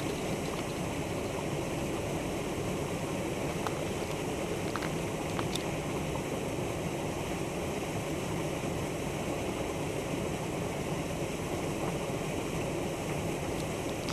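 Steady wind noise rushing over the microphone, with a few faint clicks a little before the middle.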